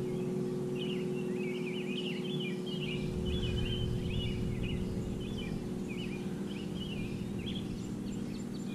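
Birds chirping in many short, quick high calls, over a steady low engine hum.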